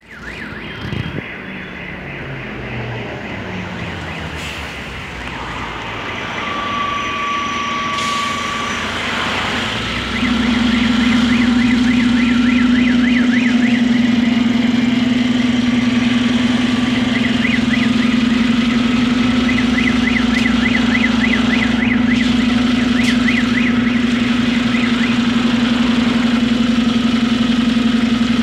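City bus drawing up to a stop, growing louder as it comes close, with a brief high squeal as it halts; then its engine idles with a loud, steady hum, heard close beside the rear engine compartment.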